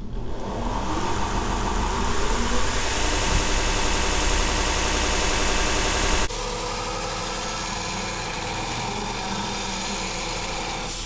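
Belt sander spinning up, then running steadily while the forged rebar knife is ground on the belt, with a harsh grinding hiss over the motor. About six seconds in the loud grinding drops away sharply and the sander runs on more quietly.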